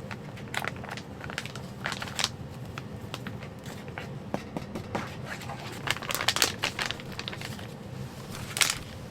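Irregular crinkling and crunching noises in short bursts, loudest about six seconds in and again near the end, over a steady low hum.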